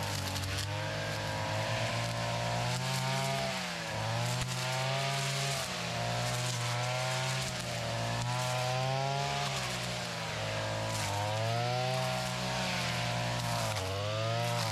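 Petrol brush cutter running hard with a chain trimmer head thrashing into woody lantana. The engine note sags and climbs back several times as the heavy chain head bites into the stems.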